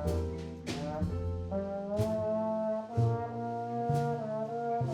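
Slow instrumental background music led by brass, sustained chords changing about once a second, each change marked by a brief accented attack.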